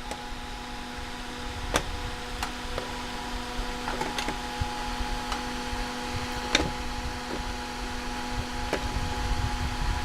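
Small electric fan motor of a homemade space heater humming steadily, with a few light clicks scattered through.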